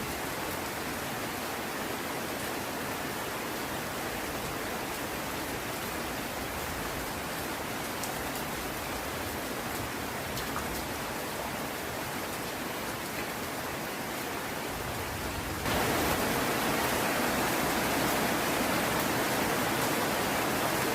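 Heavy rain falling steadily, an even hiss with faint ticks of single drops. About three-quarters of the way through it suddenly gets louder and stays so.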